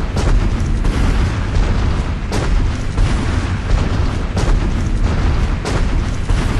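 Sound effect of a giant dinosaur's heavy running footsteps: deep thuds a second or two apart over a continuous low rumble.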